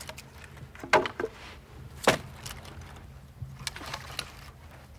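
Pieces of split firewood knocking together as they are handled and stacked: a few separate wooden clunks spread over several seconds, the loudest about two seconds in.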